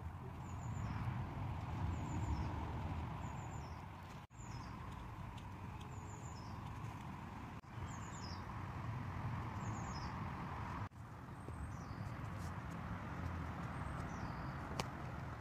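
Outdoor background: a steady low rumble with a small bird calling over it, short high descending chirps about once a second. The sound briefly drops out three times.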